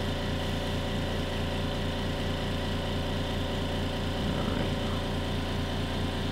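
Steady low hum with an even hiss over it, unchanging throughout: constant background noise of the room or recording equipment.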